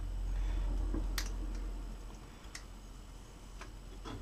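Plastic screen-protector film and a metal detector's plastic control box handled by hand: a few separate sharp clicks, the loudest about a second in, over a low rumble that fades after the first two seconds.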